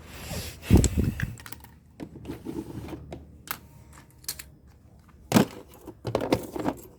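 Fidget toys being handled and put into a box: irregular knocks, clicks and rustles, the loudest clatter about a second in and a sharp click near the end.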